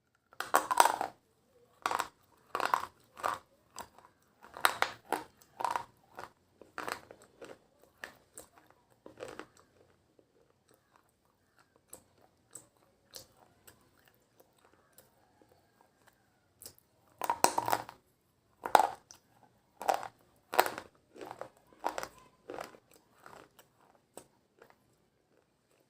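Slate pencils being bitten and chewed close to the microphone: sharp, dry crunches, many in a row, with a quieter lull of faint chewing in the middle before another run of loud crunches.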